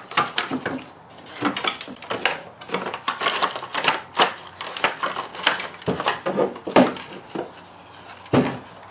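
Hard plastic parts of a car side-mirror assembly being handled and worked apart by hand: irregular clicks, knocks and scrapes of plastic on plastic.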